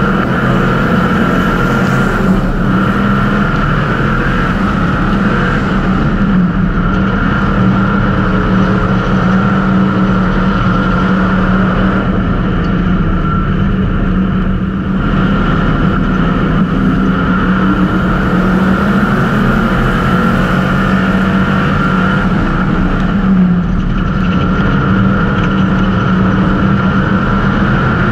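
Street stock race car's V8 engine running hard at racing speed, a steady loud drone that wavers only slightly in pitch with the throttle.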